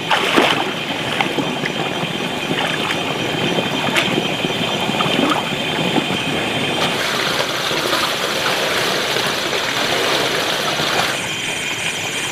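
Pond water sloshing and splashing as someone wades through it and handles a basin at the water's edge, with a few sharper splashes in the first seconds. A steady high chirring runs underneath.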